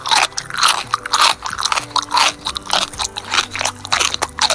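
Crunchy chewing and munching sounds in quick succession, the sound of toy food being pretend-eaten.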